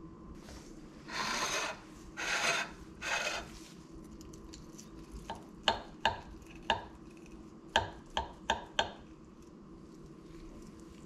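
A knife saws through crispy fried chicken crust in three short scraping strokes. Then come about eight sharp clinks of the knife and fork against a ceramic plate, each ringing briefly.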